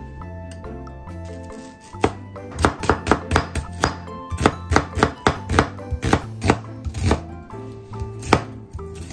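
Kitchen knife slicing an onion on a cutting board: a quick run of crisp cuts, about three or four a second, starting about two seconds in. Background music plays throughout.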